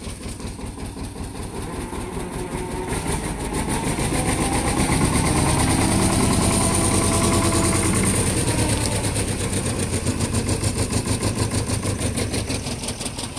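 Bolinder-Munktell Victor 230 tractor engine idling with a steady, even pulsing beat. It grows louder in the middle of the stretch, then eases off a little.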